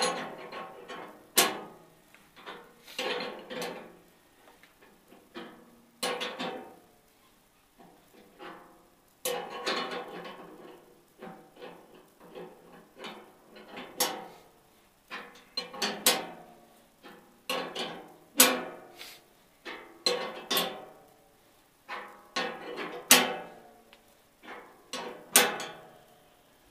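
A Greenlee conduit knockout punch, a non-bearing type with its screw heavily oiled, being cranked with a wrench through a steel enclosure. Irregular metallic clanks and creaks come every second or two, each with a short ringing of the box's sheet metal.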